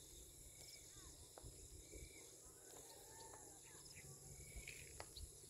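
Near silence, with a faint steady high buzz of insects and a few soft, scattered bird chirps.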